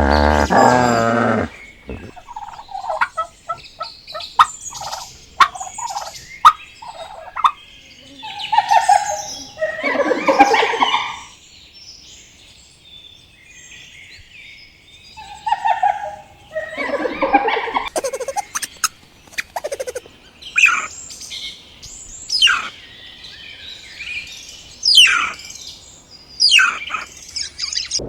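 Birds calling: a run of short chirps and quick falling whistles, with two louder, longer calls about a third of the way in and again a little past halfway.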